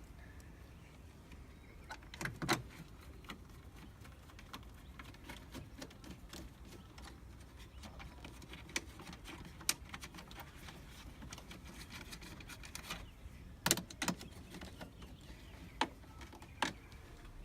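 Scattered clicks, taps and knocks of hands handling and fitting plastic engine-bay parts, with a few sharper knocks about two seconds in and near the end.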